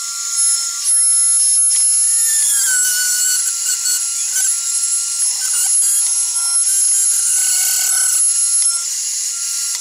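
A 6040 desktop CNC router's 1500 W water-cooled spindle milling 3 mm aluminium sheet: a steady high spindle whine with a cutting screech whose pitch wanders as the tool moves through the cut.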